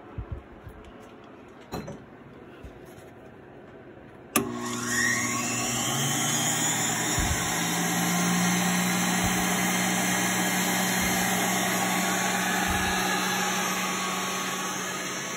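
Hobby Air supplied-air respirator blower switched on with a sharp click about four seconds in. Its motor spins up with a rising whine, then runs steadily with fan rush and a motor hum.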